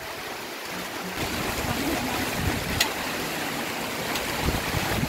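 Steady rushing noise of wind blowing across open ground. A brief sharp tick comes about three seconds in and a fainter one about a second later.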